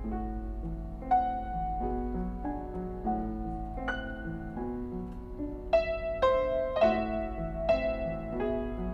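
Piano playing a piece with a repeating low figure in the left hand under a melody of struck notes and chords. The playing gets louder with accented chords about six seconds in.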